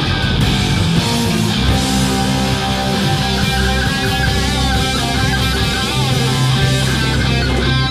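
Rock band playing live: electric guitars over drums, with a lead line of bending notes.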